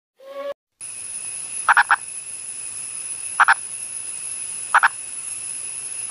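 Indian purple frog calling: short, clucking double notes repeated about every one and a half seconds, over a steady high hiss.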